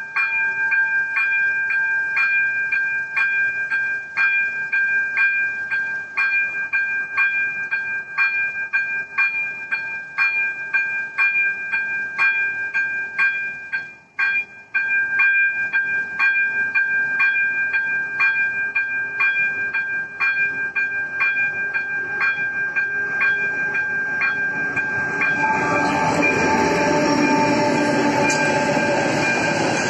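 Electronic warning bell of an AŽD 97 level crossing ringing in regular strokes, about two a second, over a steady high tone, with one short break about halfway. Near the end a passenger train runs over the crossing, its wheels rumbling loudly on the rails under the bell.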